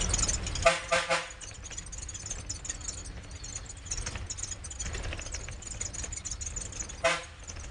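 Inside a moving Ashok Leyland diesel bus: steady engine and road rumble with cabin rattle. Two short pitched sounds stand out, one about a second in and another near the end.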